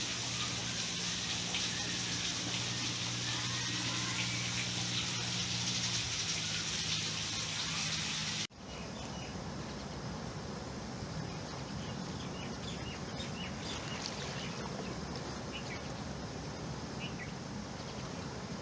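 Steady hiss of rain, with a low steady hum that stops about six seconds in. After a sudden cut about eight seconds in comes softer, steady rain and water sound with many short bird chirps.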